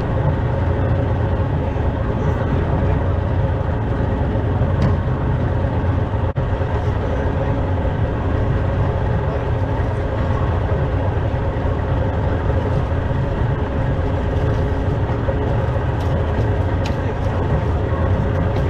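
Small boat's outboard motor running steadily at trolling speed: a constant low drone with a faint hum above it.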